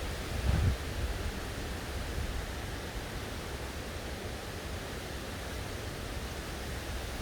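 Typhoon wind and rain: a steady hiss of heavy rain with low gusts buffeting the microphone, one stronger gust about half a second in.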